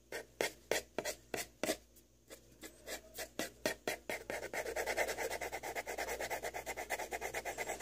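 Graphite pencil scratching on paper in short sketching strokes, spaced out at first with a brief pause, then a quick, even back-and-forth of about five strokes a second from about halfway through.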